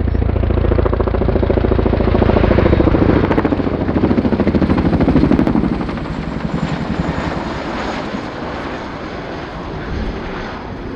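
RAF Boeing Chinook HC.6 tandem-rotor helicopter making a fast, low pass with rapid, pulsing rotor blade slap. It is loudest in the first half, then fades as the helicopter breaks away.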